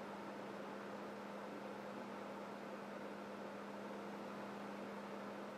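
Room tone: a steady low electrical hum over faint hiss, with no handling sounds.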